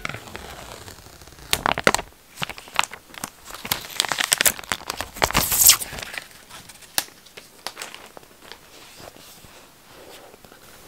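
Plastic wrapping being torn and peeled off a new iPhone 11 box, crinkling and crackling in quick rips for about four seconds, loudest shortly before the middle. After that there are only a few light rustles and taps as the box is handled.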